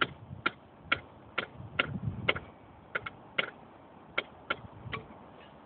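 Light metal-on-metal taps on steel rail hardware, about a dozen at roughly two a second with a quick double tap partway through, each with a short bright ring.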